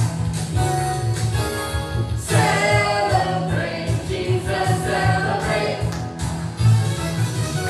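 Church worship team singing a praise song together, several voices over music with a steady beat.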